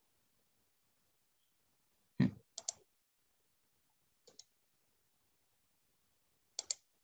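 Computer mouse clicks, mostly in quick pairs a couple of seconds apart. The first, about two seconds in, is the loudest and comes with a dull thud.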